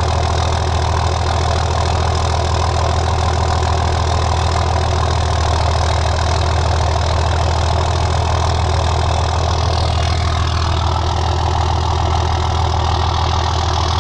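Dodge Ram's Cummins inline-six turbo diesel idling steadily, with a slight change in tone about ten seconds in.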